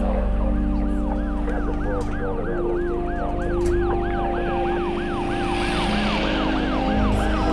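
Emergency siren in a fast yelp, its pitch sweeping up and down about three to four times a second, over low sustained music tones that shift pitch a couple of times. A hissing rush swells about five to six seconds in.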